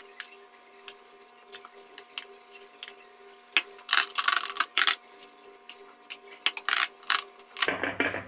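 Metal spoon clinking and scraping against a steel bowl and ceramic mugs as thick batter is spooned into the mugs. A sharp clink comes right at the start, and the clatter grows denser about halfway through and again near the end.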